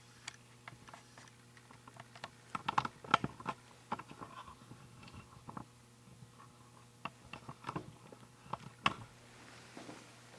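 Irregular light clicks and taps, bunched about three seconds in and again near the end, over a steady low room hum.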